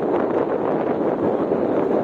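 Steady rushing wind and road noise from a moving vehicle, with wind buffeting the microphone.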